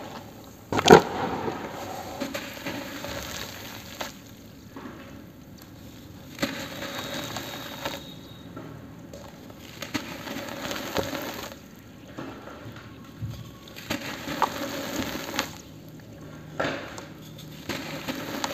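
Hands squeezing and crumbling lumps of wet cement over a tub of water, making crackly, crunching bursts every second or two, with a sharp knock about a second in.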